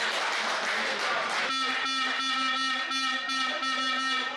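Crowd cheering and clapping, then about a second and a half in a horn sounds one steady buzzy note, held for nearly three seconds with a few short breaks, over the cheering.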